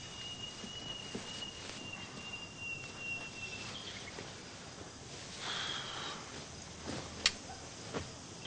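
Night-time crickets in a steady high trill that stops about four seconds in, followed by a soft rustle of cloth and a few light clicks.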